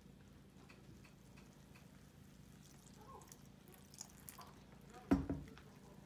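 Wire whisk faintly ticking and scraping against a glass bowl while stirring thick gram-flour batter as water is poured in, with one loud thump about five seconds in.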